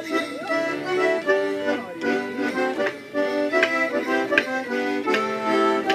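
Two diatonic button accordions (melodeons) playing a traditional folk tune together in held chords that change in a steady rhythm.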